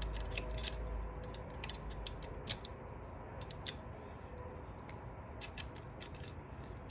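Light metallic clicks and taps of small coil springs, the low clutch springs of a 4L60E automatic transmission, being handled and set one by one into their slots, over a low steady hum.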